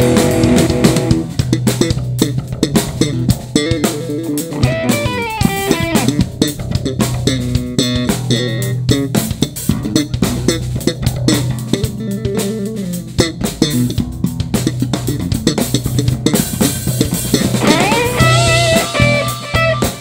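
Live rock band playing an instrumental passage. A Stratocaster-style electric guitar plays melodic lines with bends over a steady electric bass line and a drum kit.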